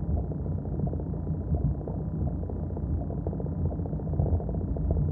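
Heavy rain drumming on a car's roof and windscreen, heard from inside the car as a dense, irregular patter over a low rumble.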